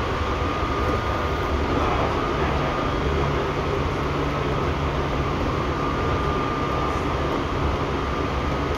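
Seibu 6000 series electric train, which has a Hitachi GTO-VVVF inverter, running at a steady speed, heard from inside the car. The rolling noise is continuous, with a steady whine over it and a low hum that grows about two and a half seconds in.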